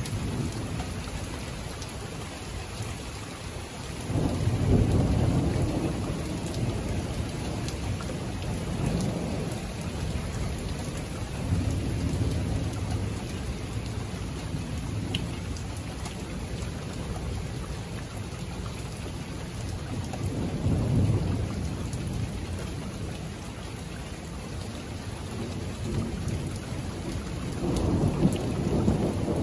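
Thunderstorm: steady rain with several long, low rumbles of thunder, the loudest about four seconds in and again near the end.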